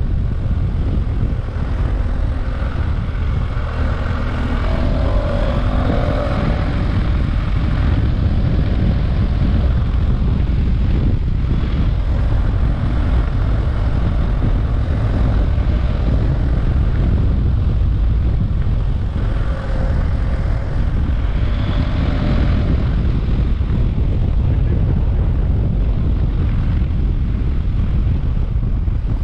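On-board sound of a BMW F800 GS parallel-twin engine running under way, with a steady rush of wind and road noise beneath it. The engine note shifts a few seconds in and again about two-thirds of the way through.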